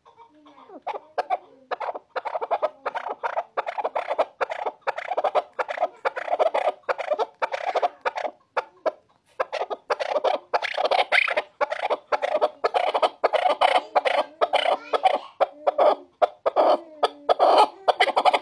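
Chukar partridge calling: a rapid run of repeated chuck notes, several a second, growing louder from about halfway through.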